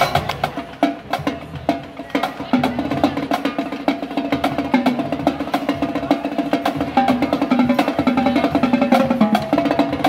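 High school marching drumline playing a fast cadence on snare and tenor drums, a dense, rapid run of stick strikes.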